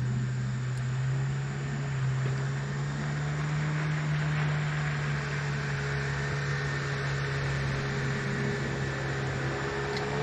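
Boat outboard motor running at a steady speed, a low even hum with fainter higher tones that drift slightly in pitch.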